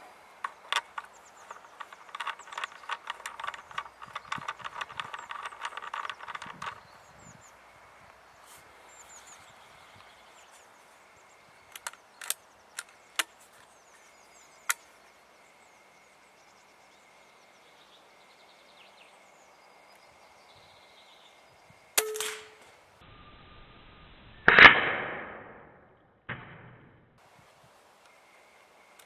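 Hatsan AT44-10 Long .22 PCP air rifle fired once, about three-quarters of the way through: a loud, sharp report that dies away over about a second and a half. A sharp click comes a couple of seconds before the shot. Earlier there is a rapid run of clicks lasting several seconds, then a few separate clicks.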